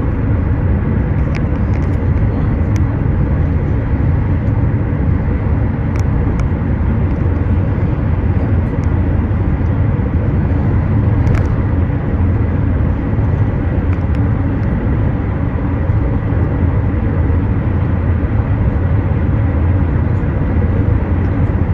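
Steady road and engine noise inside a moving car's cabin, deep and unchanging, with a few faint clicks.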